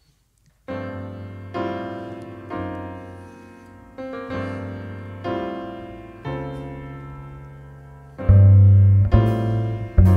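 Slow piano chords open the song, about one a second, each left to ring and fade. About eight seconds in, low bass notes join and the music gets louder.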